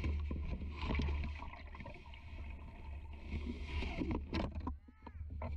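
Water sloshing and splashing as a landing net is dipped around a small sturgeon at a boat's side, under a steady low wind rumble on the microphone; a few sharp knocks come about four seconds in.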